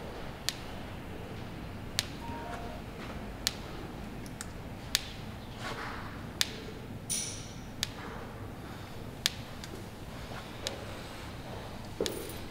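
Sharp single clicks, one about every second and a half in time with the reps of an incline barbell press. The trainer takes them for the lifter's elbow joint clicking, a sign of joints gone very dry as he gets lean before a show.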